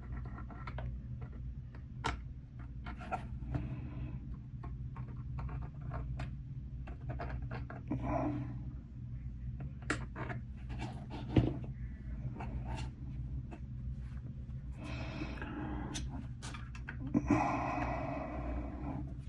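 Small clicks and taps of plastic model-kit parts and tools being handled on a workbench, with a few short rustles, over a steady low hum.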